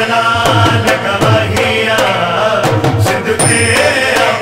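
A Sindhi manqabat, a Shia devotional song: a male voice sings a melodic line over percussion keeping a steady beat.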